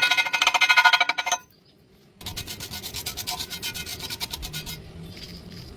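Rapid scraping or rubbing strokes in two bursts, the first short and loud, the second longer, with a sudden cut to near silence between them.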